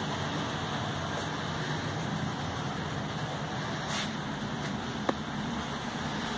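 HO scale model train running on the track: a steady rolling whir of wheels and motor, with a few short clicks.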